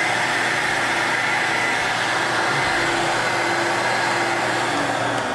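Mytee portable carpet extractor's vacuum motor running with a steady whine and rush of air; near the end its pitch starts to drop as the motor begins to spin down.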